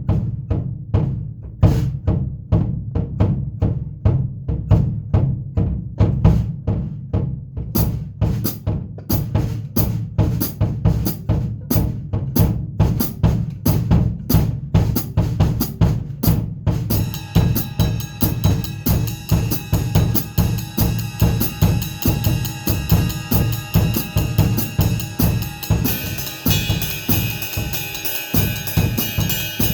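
Drum kit played in a steady groove of bass drum and snare strokes. Cymbals ring continuously from about halfway through, and a brighter cymbal wash joins near the end.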